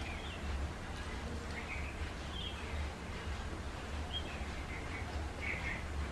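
Small birds chirping in the background, short high calls every second or so, over a steady low hum.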